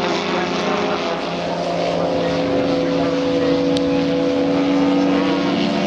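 Large radio-controlled Tiger Moth model's Valach VM 120 four-stroke inline petrol engine running in flight, turning its propeller with a steady drone that holds its pitch.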